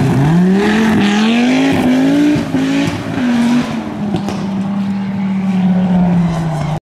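Audi quattro rally car's turbocharged five-cylinder engine accelerating hard, climbing in pitch through several quick gear changes. It then holds a steady note that slowly falls, and the sound cuts off abruptly near the end.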